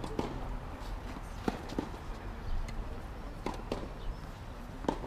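Footsteps and ball bounces on a clay tennis court between points: a few short knocks, some in close pairs, over a low steady rumble.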